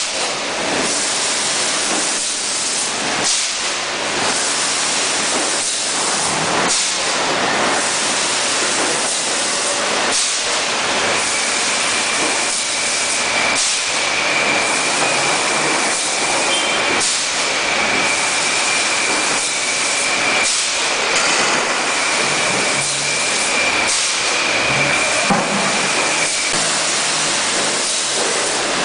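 A 6 L PET bottle filling line running: a steady hissing machine noise with frequent short knocks. A steady high whine comes in about eleven seconds in and stops a couple of seconds before the end.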